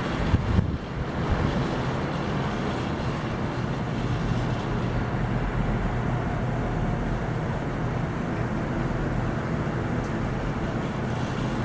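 Many ceiling fans running at once: a steady rush of moving air with a low motor hum, and a brief bump in the first second.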